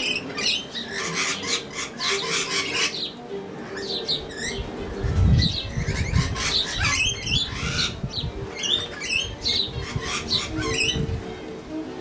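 Backyard birds calling throughout: a busy mix of rapid high chirps and harsher squawks, with a low rumble through the middle.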